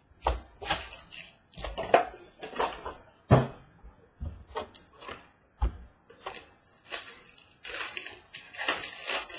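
Hands opening and sorting baseball card packs: irregular short bursts of wrapper crinkling and cards sliding and shuffling, with a few sharper knocks of cards tapped on the table.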